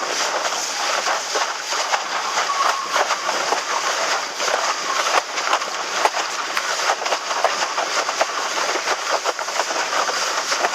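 Windsurf board planing fast over choppy water in strong wind: a steady rush of water and wind on the microphone, broken by rapid, irregular slaps of the board on the chop.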